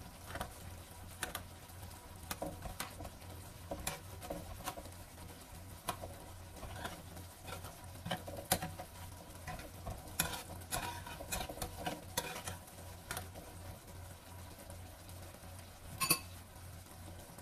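Metal spoon stirring and basting creamy sauce in a non-stick frying pan, with irregular light clinks and scrapes against the pan and one sharper clink near the end.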